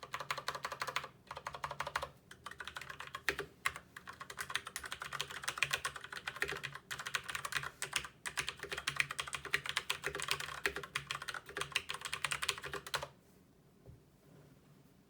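Fast continuous typing on a Filco Majestouch 2 mechanical keyboard with tactile, non-clicky Cherry MX Brown switches and stock ABS keycaps: a dense patter of keystrokes that stops about two seconds before the end.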